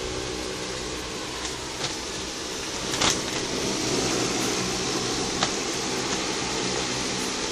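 Steady hum and rushing of a hydroponic system's circulating water pump and the water running through its channels. A few light knocks, the clearest about three seconds in.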